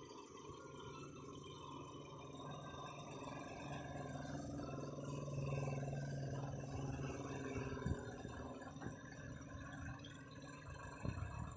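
Tractor engine running steadily while its front-mounted brick loader holds a pallet of bricks aloft, growing louder in the middle, with a few short knocks near the end.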